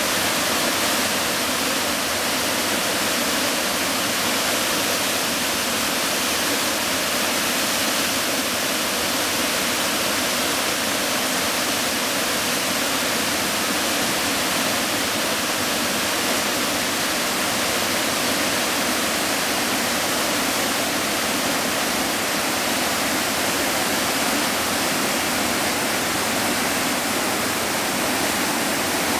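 Rushing water pouring through the openings of a stone dam and churning over the rocks below: a steady, unbroken rush of whitewater.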